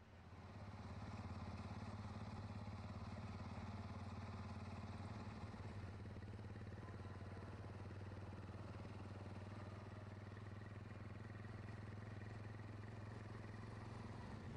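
Steady low rumble of distant city traffic with a faint hiss over it, coming in about half a second in.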